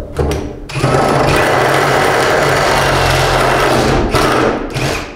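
Ryobi cordless impact driver boring a spade bit through a wooden 2x4 stud, its impact mechanism hammering rapidly under load. A short burst comes first, then a steady run of about three seconds, then a brief final burst near the end.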